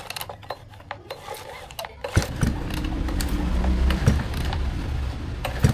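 Small two-stroke engine starting about two seconds in, after a few clicks and knocks, then running steadily with a low rumble.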